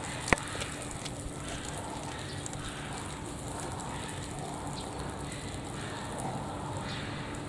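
Steady outdoor background noise with a faint low hum, and a single sharp click just after the start.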